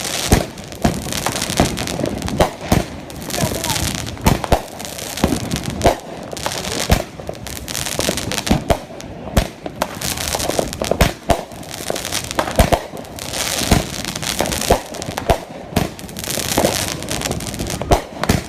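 Fireworks and firecrackers going off: irregular sharp bangs, about one or two a second, over a continuous crackle.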